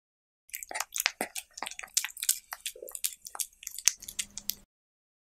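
A cat chewing and licking food from a taco of diced cucumber, tomato and meat, heard close up as a quick run of small wet clicks and crunches. It starts about half a second in and cuts off abruptly near the end.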